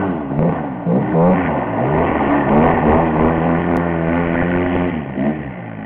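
Polaris RZR side-by-side's engine revving up and down repeatedly as it is driven around on snow.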